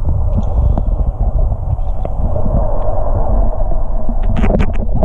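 Muffled underwater rumble and water rush heard through a submerged action camera's housing, with a steady hum under it and a few sharp clicks near the end.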